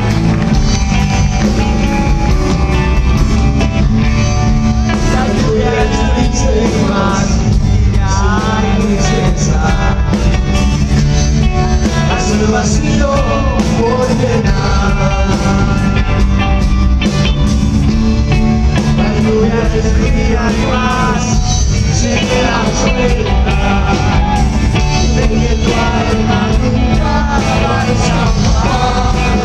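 Live rock band playing at full volume, recorded on a mobile phone, with a melodic lead line bending in pitch over the band.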